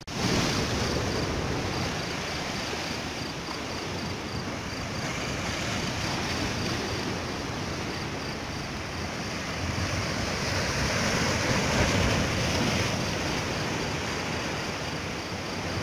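Sea waves breaking and washing over shoreline rocks, a steady rushing surf.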